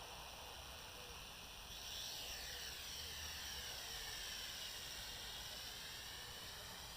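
JXD 509 toy quadcopter's motors and propellers whining as it lifts off about two seconds in, the pitch rising and falling as the throttle changes.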